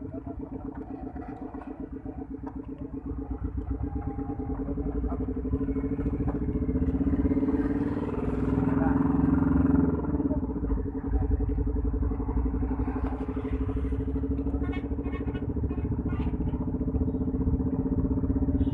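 Motor vehicle engine running with a fast, even pulsing beat, heard from inside the moving vehicle along with road noise. The engine note rises and grows louder from about four seconds in as it speeds up, then dips briefly about ten seconds in.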